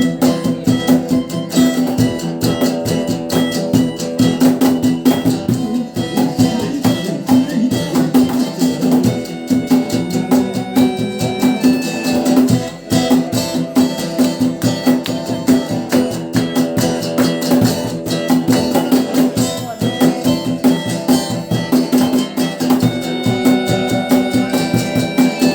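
A rock band playing an instrumental passage live, with guitar and a steady drum-kit beat.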